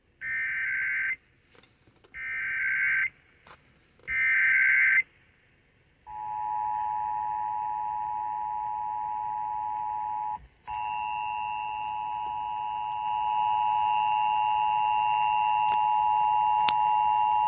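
Emergency Alert System test signal heard over AM radio: three short bursts of screeching digital header data (the SAME code), followed by the steady two-tone attention signal, which drops out for a moment partway through and then carries on.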